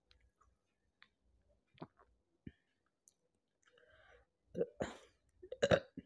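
A woman's quiet sips and swallows of carbonated soda, then a quick run of burps in the last second and a half, the loudest one last.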